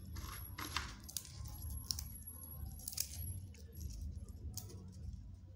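Scattered light clicks and rustles of warm roasted peanuts being rubbed between the fingers to slip off their papery skins, the nuts tapping against each other and a ceramic plate, over a steady low hum.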